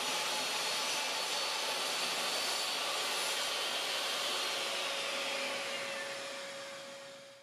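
DeWALT table saw's motor running with a steady whir, then switched off and coasting down. Its whine falls in pitch and the sound fades out near the end.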